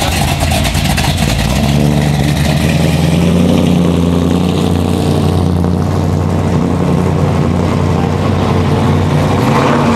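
Classic 1950s Chevrolet's engine running with a low, steady note as the car drives off slowly.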